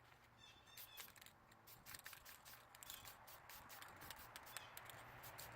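Near silence: faint room tone with a few soft scattered clicks.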